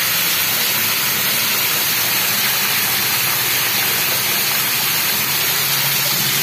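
Heavy rain falling, a steady hiss that does not let up.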